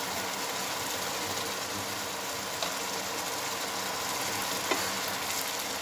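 Finely chopped vegetables sizzling and bubbling in a pan with a splash of added water, a steady even hiss as the water cooks off.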